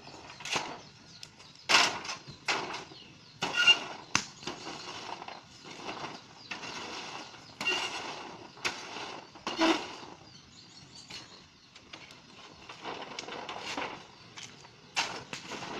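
Cashew nuts in their shells popping and crackling as they roast over an open fire on a corrugated metal sheet. They burst irregularly, some cracks loud and sharp, with the occasional scrape of a stirring tool on the metal.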